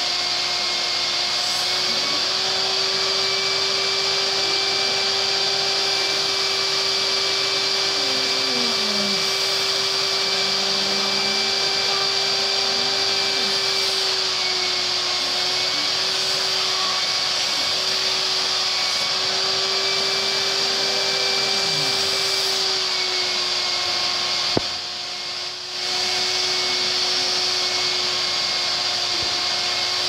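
Vacuum cleaner (hoover) running steadily, its hose sucking with a constant hum and a high hiss. Late on there is one sharp click and the sound dips for about a second before returning to its steady level.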